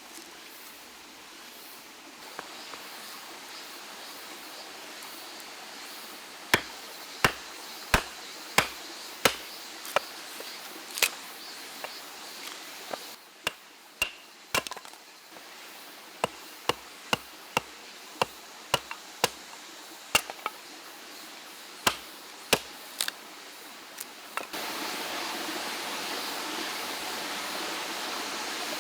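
Wood being chopped: sharp knocks in runs of several strokes, a little under a second apart, with short pauses between runs. A steady rush of a flowing stream sits behind, and becomes louder near the end.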